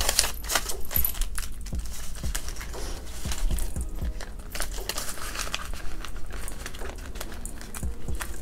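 A stack of paper banknotes rustling and flicking as it is handled and slid into a crinkly clear plastic binder envelope, with many small sharp clicks and light metallic clinks of bangles.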